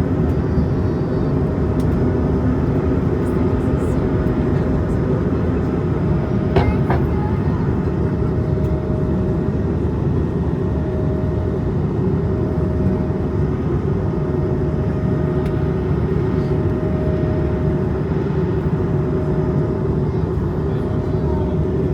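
Steady low rumble of cabin noise aboard an Airbus A220-300 airliner, with a faint hum that comes and goes. There is a single sharp click about six and a half seconds in.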